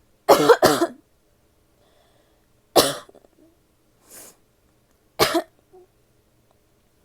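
A woman coughing: a quick double cough near the start, then single coughs about 2.5 s apart, with a fainter breath between the last two.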